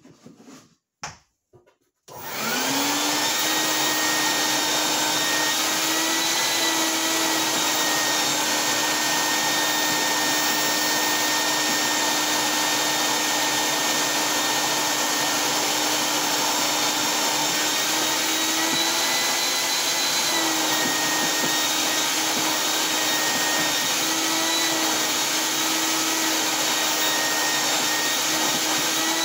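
Shop vacuum switched on about two seconds in, its motor spinning up and then running steadily as it sucks loosened foam out of a hole in the plywood floor. Its pitch shifts briefly several times.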